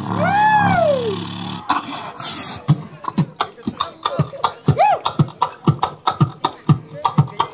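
A boy beatboxing into a microphone. It opens with a long vocal sweep that rises then falls, then a short hiss, then a steady beat of kick-drum-like strokes about two to three a second, with a brief pitched sweep partway through.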